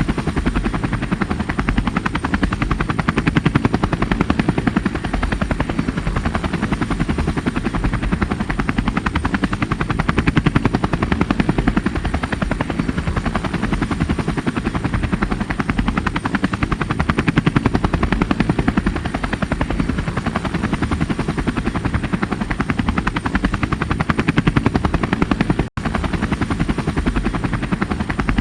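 Helicopter flying, its rotor beating in a fast, steady rhythm with a faint high whine over it. The sound cuts out for an instant near the end and resumes unchanged.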